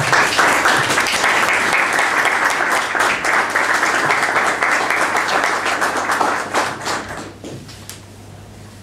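Audience applauding, a dense patter of many hands clapping that fades away about seven seconds in.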